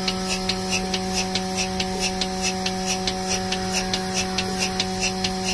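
Portable milking machine running: a steady motor hum with a quick, even rhythm of short hissing pulses, about four a second.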